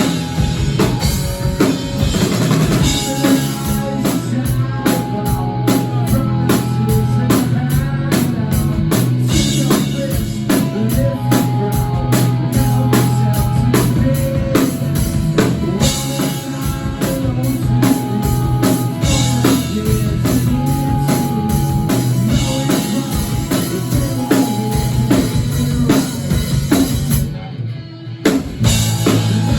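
Live rock band playing: a drum kit with bass drum keeps a steady beat under guitar and bass. The music thins out briefly about two seconds before the end, then the full band comes back in.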